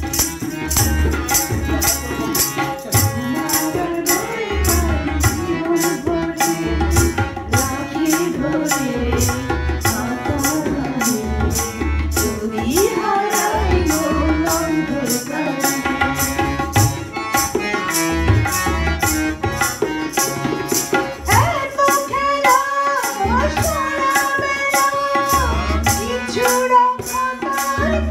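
A Bengali song with tabla-style drumming under an even shaker pulse and a melody line. About two-thirds of the way in, a woman's singing voice comes in over a microphone.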